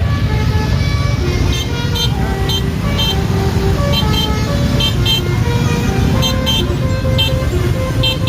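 Bus 'telolet' multi-tone air horn (Basuri) playing a quick tune of short notes that step up and down in pitch, over a steady low rumble.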